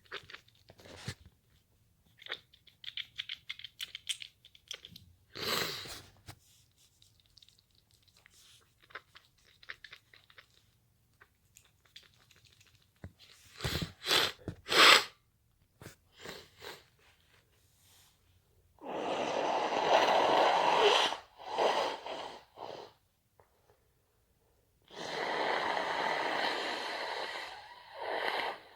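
A person sneezing: a cluster of sharp sneezes about halfway through, with small rustling and sniffing sounds before them and two long, noisy blows of breath of a couple of seconds each later on.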